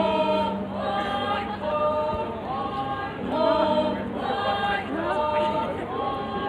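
A group of voices singing a folk song together in short, repeated chanted phrases, a new phrase starting about once a second.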